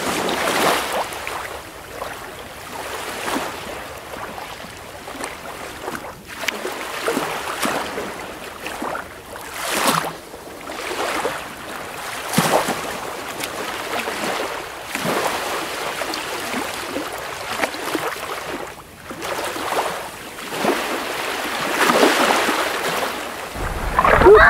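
Shallow surf washing around the legs in swells that rise and fall every couple of seconds, with wind buffeting the microphone.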